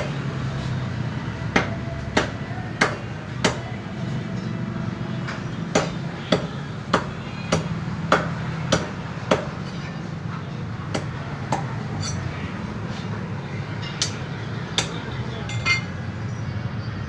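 Meat cleaver chopping chicken on a wooden log chopping block, over a steady low hum. The sharp knocks come about every 0.6 seconds in runs of four and then seven, with a few scattered strokes after.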